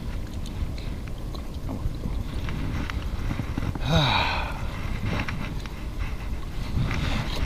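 Wind rumbling on an action-camera microphone, with scattered small knocks and scrapes of hands and shoes on granite rocks. About four seconds in there is one brief louder sound that falls in pitch.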